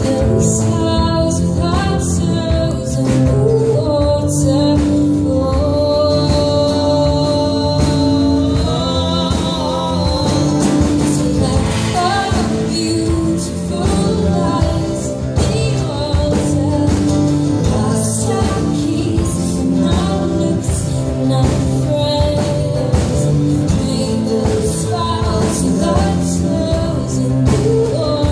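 Live folk song: a woman singing over two acoustic guitars, with steady strumming throughout.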